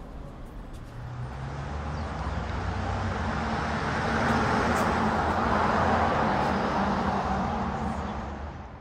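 A motor vehicle passing along the street. Its noise swells to a peak around the middle, fades near the end, and runs over a steady low engine hum.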